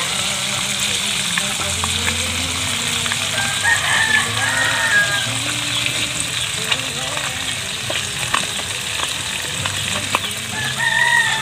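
Round scad (galunggong) sizzling steadily as they deep-fry in oil in a wok over a charcoal stove, with scattered crackles. A rooster crows twice, a few seconds in and again near the end.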